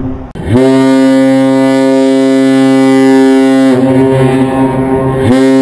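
Synthesized cargo ship horn: a previous blast cuts off right at the start, then a new steady horn blast holds for about three seconds, eases back, and a second blast sounds near the end.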